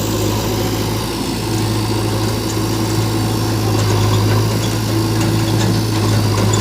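Heavy diesel engine running steadily at low revs, a constant deep drone, from the JCB 3DX backhoe loader or the Mahindra 475 DI tractor working alongside it.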